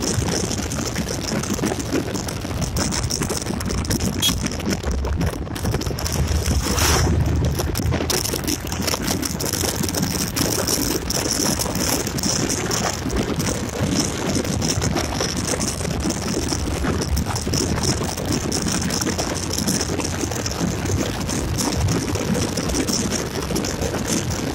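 Steady rushing wind noise on the microphone and road noise from a Yamaha Gladiator motorcycle riding at speed, with a brief louder rush about seven seconds in.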